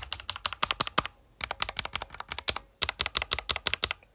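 Magegee 60% keyboard being typed on: quick, sharp keystroke clicks at about eight a second, in three runs with brief pauses about a second and a half and three seconds in.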